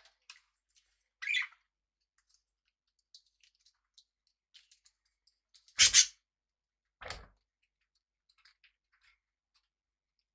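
Pet budgies and cockatiels moving about: scattered faint clicks and scratches, a short noisy sound about a second in, and two sudden louder bursts around six and seven seconds in, the first the loudest.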